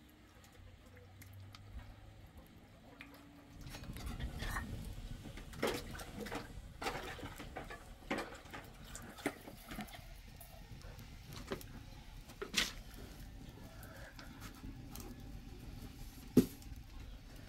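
Kitchen work sounds: scattered light knocks and clicks of utensils and dishes over a low steady rumble that starts a few seconds in, with one sharp knock near the end.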